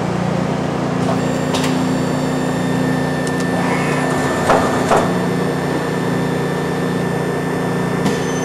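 Okuma LB9 CNC turning center running in automatic cycle: a steady, smooth machine hum with a thin high whine, broken by a few short clicks and knocks, two of them close together about halfway through.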